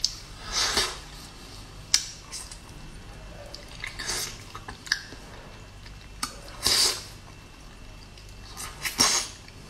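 Mouth sounds of eating a piece of durian: four short, soft slurping sucks as the soft flesh is sucked off the seed, with a few sharp lip smacks between them.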